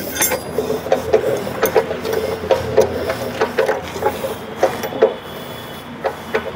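A Field Marshal 12 hp single-cylinder diesel engine being turned over by hand without firing, clicking and clanking irregularly while air is bled from its fuel system. The sound quietens about five seconds in.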